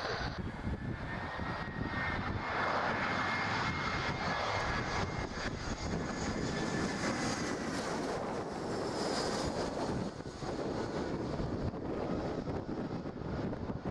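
Airbus A320-family airliner on approach, its twin turbofan engines running with a steady rumble and a thin high whine over it.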